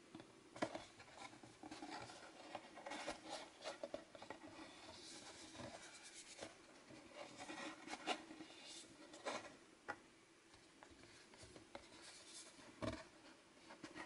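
Fingers and fingernails scratching, tracing and tapping on a Fitbit's cardboard box and its printed wrist-sizing strip, with irregular handling rustles and scattered sharp taps, the sharpest about half a second in and near the end.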